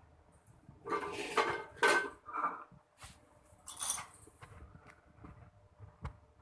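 Metal cooking utensils clattering against a pot: a run of clinks from about one to two and a half seconds in, and another near four seconds.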